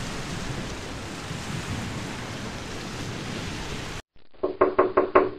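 A steady rain-like rushing noise cuts off about four seconds in. It is followed by a quick run of about five knocks on a wooden door.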